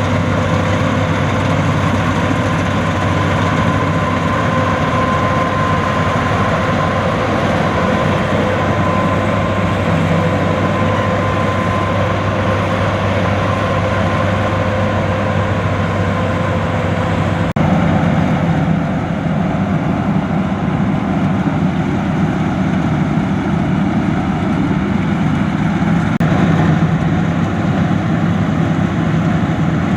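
Combine harvester running steadily under load, a heavy engine drone with a steady whine from the machinery above it. The sound changes abruptly a little past the middle, the whine fading and the low drone shifting.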